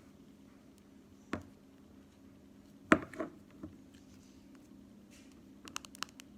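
A few separate sharp taps or knocks on a hard surface, the loudest about three seconds in with two smaller ones just after, then a quick run of small clicks near the end, over a faint steady hum.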